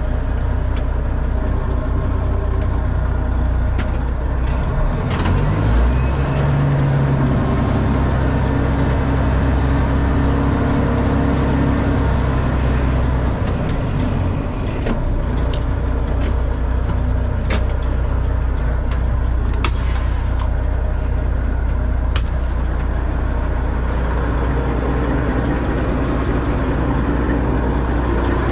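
Freightliner FLD semi truck's diesel engine running steadily, its engine speed shifting about five to six seconds in, with a few sharp clicks over it.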